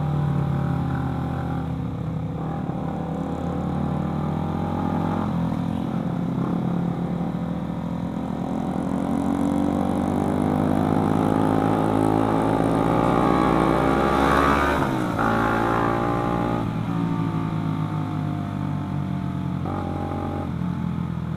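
Motorcycle engine heard from the rider's seat, pulling up through the gears. Its note climbs steadily for several seconds, drops sharply at a gear change about 15 seconds in, then climbs and shifts again near the end, over a steady rush of wind and road noise.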